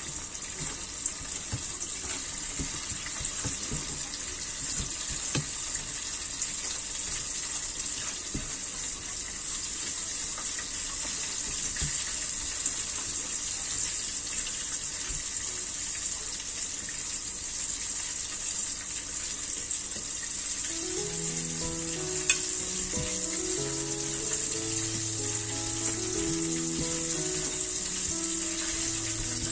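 A steady sizzling hiss like oil frying, with a few light knocks from hands working a chicken drumstick through flour in a stainless steel bowl in the first several seconds. Background music with slow notes comes in about two-thirds of the way through.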